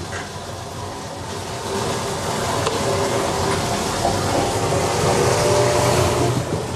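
Wastewater rushing through a sewer shaft and pipe, a steady rush with a mechanical hum under it, growing louder over the last few seconds.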